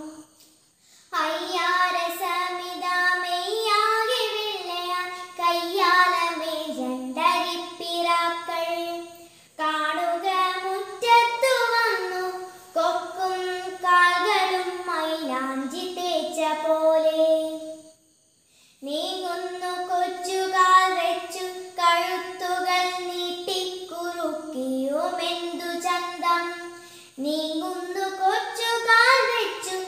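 A young girl singing a Malayalam poem solo, with no accompaniment, in a sung recitation style. She starts about a second in and takes a short break about 18 seconds in.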